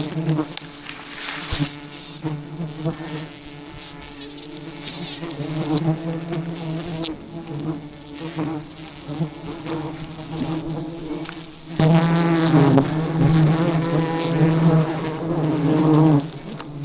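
A swarm of wild honeybees buzzing close by, a steady drone that grows much louder about twelve seconds in.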